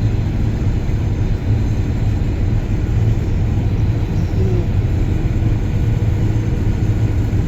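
John Deere combine harvester running steadily while harvesting wheat, heard from inside the cab: a constant, unchanging low drone of engine and threshing machinery.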